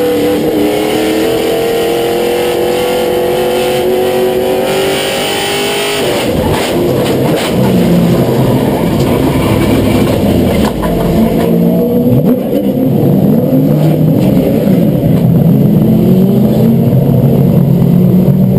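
Limited late model race car's engine heard from inside the cockpit, running at speed with a slowly rising pitch. About six seconds in the sound changes abruptly to a lower, rougher engine note with a few sharp knocks, then the engine pitch rises and falls and it gets louder.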